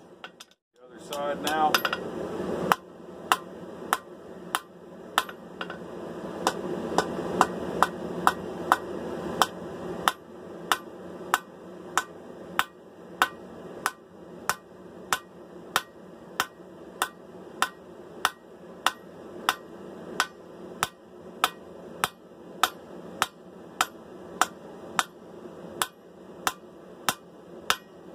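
Hand hammer striking a hot steel sword blade on an anvil, drawing out the bevels, in a steady rhythm of about one and a half blows a second. The hammering pauses briefly near the start, where there is a short rush of noise.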